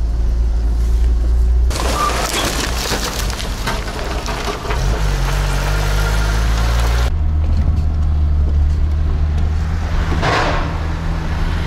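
Niva off-roader's engine running as it drives along a dirt track, a steady low drone. About two seconds in the sound turns to loud rough tyre and wind noise over the dirt, heard from outside the car. About seven seconds in it cuts back to the engine drone heard from inside the cabin.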